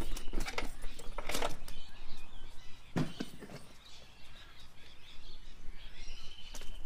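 A few sharp knocks and clatters from gear being handled on a parked motorcycle, the loudest about three seconds in, with birds chirping in the background.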